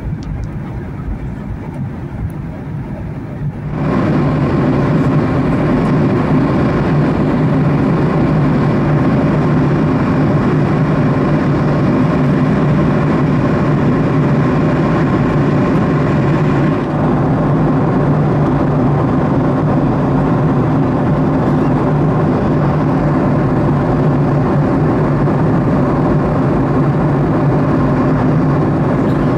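Steady in-cabin drone of a Boeing 737-800 in cruise, from its CFM56 jet engines and the air rushing past the fuselage, with a low hum. It becomes suddenly louder about four seconds in.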